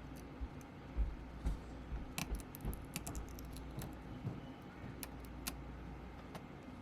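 Scattered light clicks and taps of small tools and parts being handled on a workbench, with a quick run of them between about two and three and a half seconds in.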